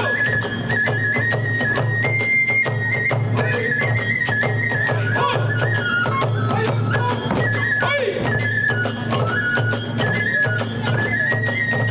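Kagura hayashi ensemble playing: a bamboo flute carries a stepping melody over fast, steady drum and hand-cymbal beats.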